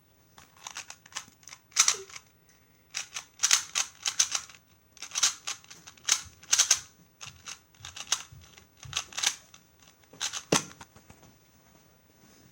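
2x2 speedcube being turned fast through a timed solve: bursts of sharp plastic clicks and clacks in irregular clusters for about ten seconds. The run ends with a harder knock about ten and a half seconds in.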